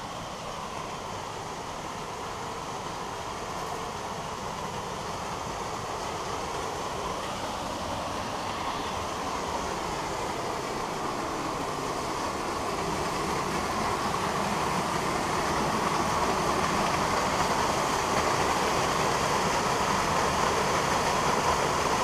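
Small waterfall rushing into a rock pool: a steady roar of falling water that grows gradually louder as it is approached.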